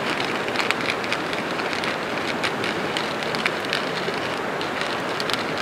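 Hand pepper mill grinding peppercorns over a pot, giving quick irregular crackling ticks over a steady rushing background.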